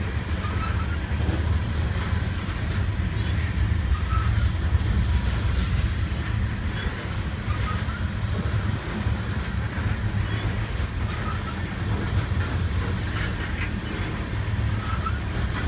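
Freight train of tank cars rolling past at close range: a steady rumble of steel wheels on the rails.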